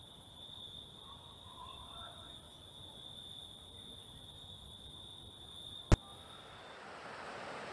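Crickets trilling in one steady, unbroken high note, fairly quiet night ambience. About six seconds in a single sharp click sounds, the trilling stops soon after, and a soft hiss swells up.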